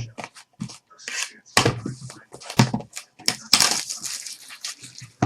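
Trading card packs being opened and handled: irregular rustling, crinkling and light knocks of wrapper and cards, with a longer tearing rustle about three and a half seconds in.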